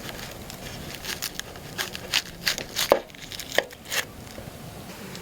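Knife chopping on a cutting board: a run of irregular sharp taps, loudest and most frequent in the middle.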